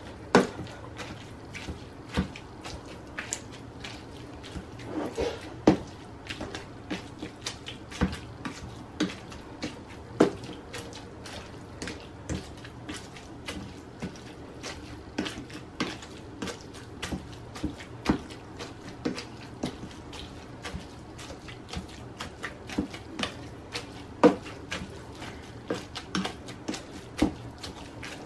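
Black plastic potato masher pressing boiled carrots and parsnips in a nonstick frying pan: soft mashing with irregular taps and clicks, a few a second, as the masher strikes the pan base.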